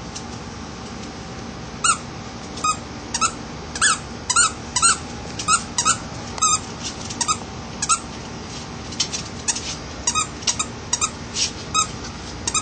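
A dog's squeaky toy being chewed by a Bichon Frise, giving a quick irregular string of short, sharp squeaks, about twenty in ten seconds.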